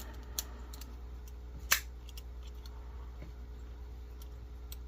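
A few small metal clicks from a folding multitool's tools being handled and swung on their pivots, with one sharper click about 1.7 seconds in, over a low steady hum.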